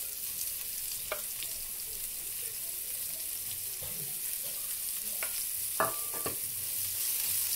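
Chopped shallots frying in hot oil in a frying pan with tempered mustard seeds and chillies, a steady high sizzle. A few sharp clicks sound over it about a second in and again near the six-second mark.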